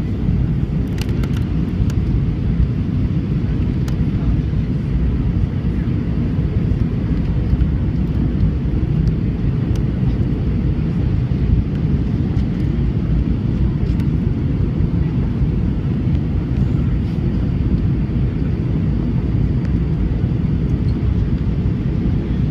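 Steady low rumble of an Airbus A320's engines and airflow, heard from inside the passenger cabin in flight.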